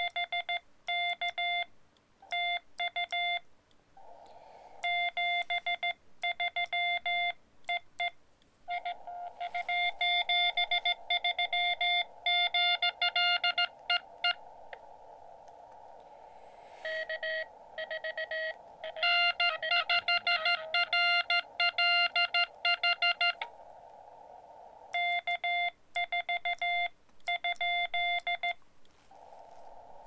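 Morse code (CW) tones from a Xiegu X-6100 transceiver: quick runs of beeps at one steady pitch, broken by pauses filled with the hiss of the receiver's narrow CW filter. One short run near the middle comes in at a slightly lower pitch.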